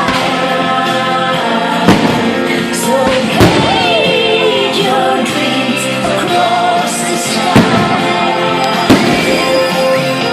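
Fireworks show: about four sharp firework bangs, spaced a few seconds apart, over loud music with choir-like singing.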